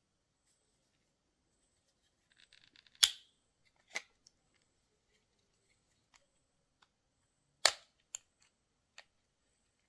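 Sharp clicks and snaps of a Wahl Color Pro cordless hair clipper's plastic parts being handled and pried apart during disassembly: a quick rattle of tiny clicks, then a loud snap, a smaller click about a second later, and another loud snap followed by a few lighter clicks.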